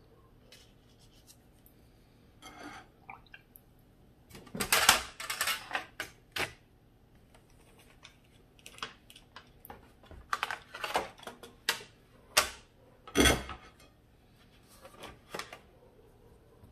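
Watercolour painting supplies being handled: scattered clicks, clinks and short scrapes in uneven clusters, the loudest about five seconds in and again near thirteen seconds.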